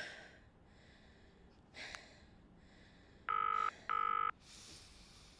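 British phone ringback tone, the double ring of two short beeps, heard through a mobile phone's speaker as a call rings out. A soft knock comes about two seconds in, and a brief rustle near the end.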